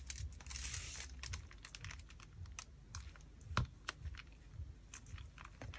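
Faint, scattered clicks and light taps of fingers pressing small paper flowers and leaves down onto card, with one sharper click about three and a half seconds in.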